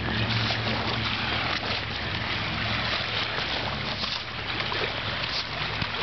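Steady rushing of wind on the microphone and surf, with faint crunching footsteps of two people walking on the sand.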